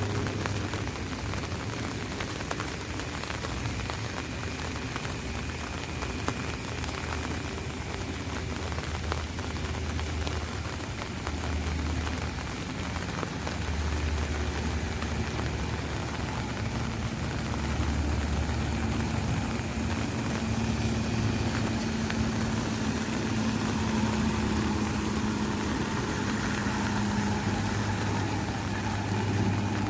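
Rain falling steadily on an umbrella, with a low engine hum from vehicles underneath that grows stronger in the second half.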